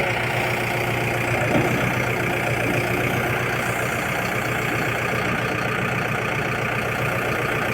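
Manitou backhoe loader's diesel engine running steadily with an even, unbroken hum.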